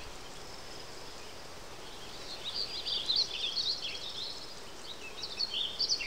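Weaver birds chattering: quick, scratchy chirps in a burst through the middle and again near the end, over a steady faint outdoor hiss.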